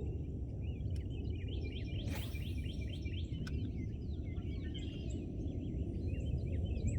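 Birds singing, a quick run of repeated chirping notes, over a steady low background rumble.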